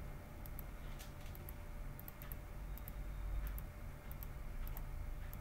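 Faint computer mouse clicks, many in quick pairs, over a low steady hum.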